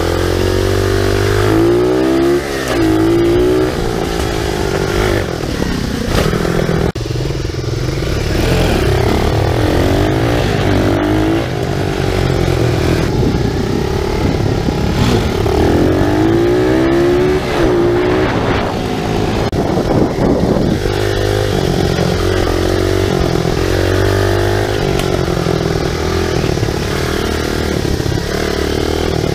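SSR 125cc pit bike's single-cylinder four-stroke engine running hard on a dirt trail, its pitch climbing and dropping again and again as it accelerates and shifts through the gears, with some rattle from the bike.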